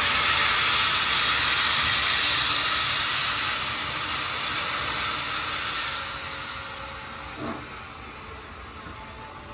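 Hunslet Austerity 0-6-0 saddle-tank steam locomotive hissing steam from its open cylinder drain cocks. The hiss is loud at first and dies away over the last few seconds.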